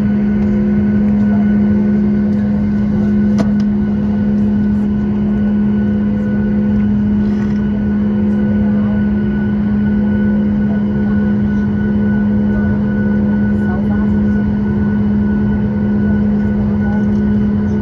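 Steady cabin drone of a Boeing 737 MAX 8 taxiing, its CFM LEAP-1B engines at taxi power, heard from inside the cabin: a constant deep hum with fainter steady tones above it and an even rush of noise.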